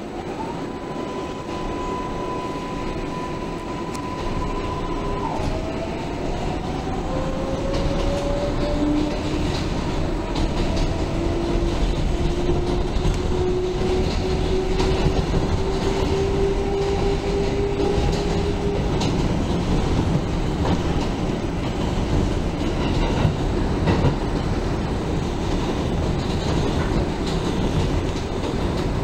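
New York City subway 4 train pulling away and picking up speed, heard from inside the car. The propulsion whine holds one high steady tone for the first few seconds, then drops to lower tones that climb slowly in pitch. Under it runs the rumble of wheels on track, with clicks over the rail joints.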